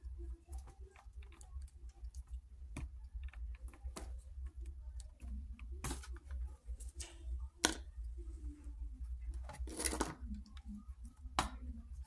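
Light clicks and taps of small parts on a 1:24 scale model truck being handled, as a gloved hand works at its wheel and suspension, with a brief scraping rustle about ten seconds in. A low steady hum runs underneath.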